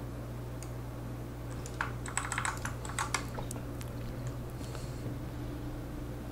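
Computer keyboard being typed on: a short run of quick keystrokes from about one and a half to three and a half seconds in, with a few lone clicks around it, over a steady low hum.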